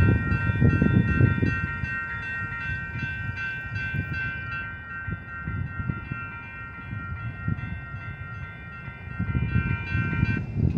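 Railroad crossing warning bell ringing on during a malfunction activation with no train present, then cutting off shortly before the end as the crossing times out. A low rumbling noise runs underneath, loudest at the start and near the end.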